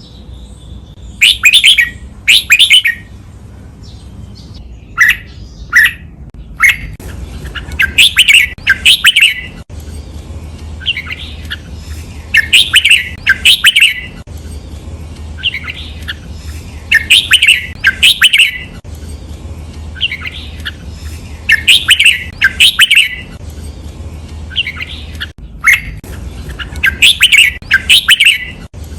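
Red-whiskered bulbul singing loud, repeated song phrases, most of them doubled as two quick bursts in a row, every few seconds over a faint low hum.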